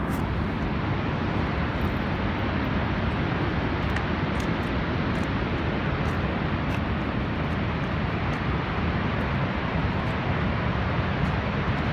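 Niagara's Horseshoe Falls: the steady, deep rush of the falling water, an even noise with no breaks.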